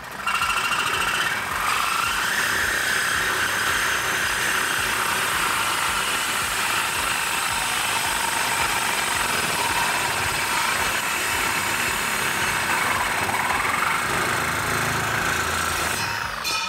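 Reciprocating saw (Sawzall) cutting through a 304 stainless steel exhaust tailpipe, the blade running steadily on the metal. It starts just after the beginning and stops near the end, once the pipe is cut through.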